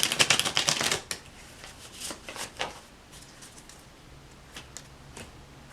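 Tarot deck being shuffled by hand: a quick, dense flutter of card clicks in the first second, then a few separate card snaps and slides, fading to soft handling.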